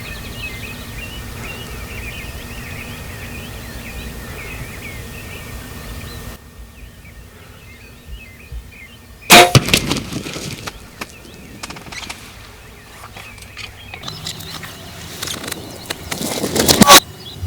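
Small birds singing over steady outdoor background. After an abrupt cut, two very loud, sudden bursts of noise: one about nine seconds in that trails off over a second or so, and a second that builds and then cuts off sharply near the end.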